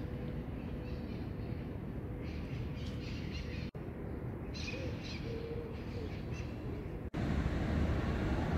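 Birds chirping with a short, low hooting call over a steady low outdoor rumble. A brief break about four seconds in and another about seven seconds in; after the second, the rumble is louder.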